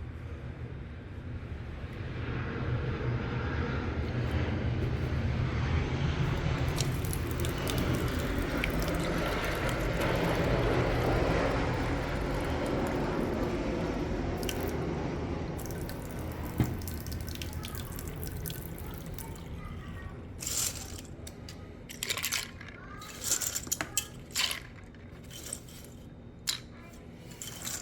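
Tap water running into a sink, swelling and then fading out a little over halfway through. It is followed by a series of sharp, irregular clicks and clatters.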